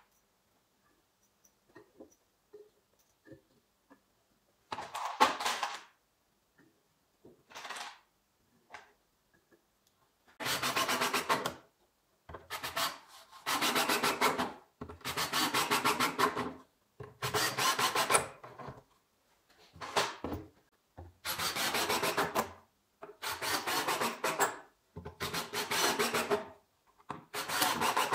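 Cordless drill driving wood screws into pine planter boards, a run of about ten screws, each driven in a second or so with short pauses between. Before that, a few light handling knocks and two short bursts.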